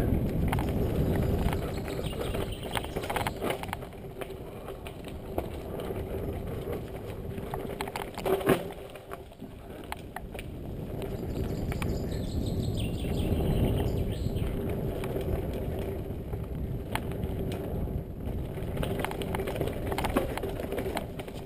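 Mountain bike running downhill over dirt and loose stones: tyres rumbling and crunching, the bike rattling with many small clicks, and one sharp knock about eight and a half seconds in.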